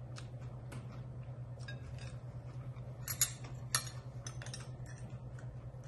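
Light clinks and taps of kitchen utensils against dishes, with two sharper clinks a little past three seconds in, over a steady low hum.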